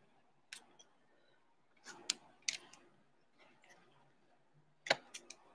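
Sharp clicks and light taps from handling trading cards in rigid plastic holders: one click about half a second in, a few around two seconds, and another few near the end.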